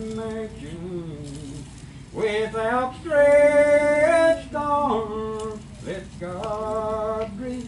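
Slow gospel singing by men's and women's voices, drawing out long held notes of the hymn's line with slow slides between them.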